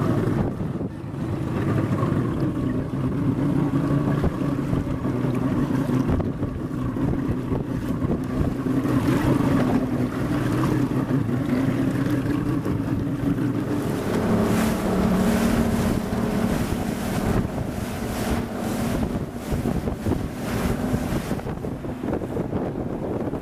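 Engine of a 15 m police patrol boat running at speed as it passes, a steady drone that drops to a lower pitch about fourteen seconds in. The rush of its wake and wind buffeting the microphone run underneath.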